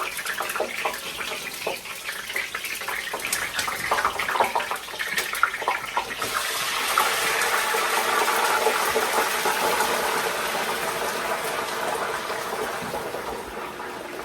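Frozen French fries frying in hot oil: scattered crackling pops, then a louder, steady sizzle from about six seconds in that slowly dies down.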